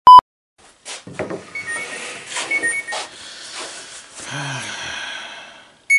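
A short, very loud test-tone bleep, then knocks and rustling as wooden frame pieces are handled on a workbench. A phone's alert sounds twice as a pair of short high notes, and a brief low hum of a man's voice comes near the middle.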